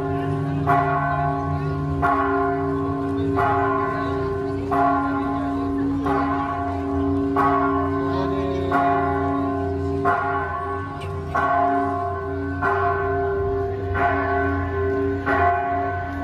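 Church bell tolling steadily, one strike about every 1.3 seconds, each stroke ringing on into the next.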